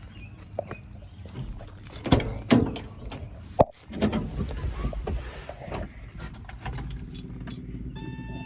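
A few sharp knocks, then a Toyota 20R four-cylinder engine being cranked by its starter from about four seconds in without catching. A steady tone comes in near the end.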